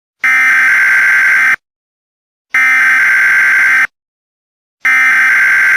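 Emergency Alert System SAME header: three loud bursts of buzzing digital data tones, each a little over a second long with about a second of silence between them. This is the coded header that opens an alert, here a child abduction emergency.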